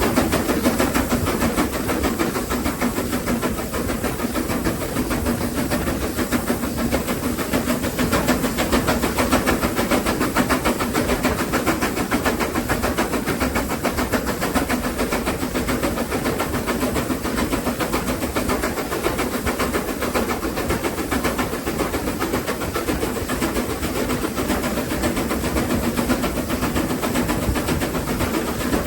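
BR Standard Class 4 4-6-0 steam locomotive No. 75069 running with a train, a loud, steady, unbroken sound that holds throughout.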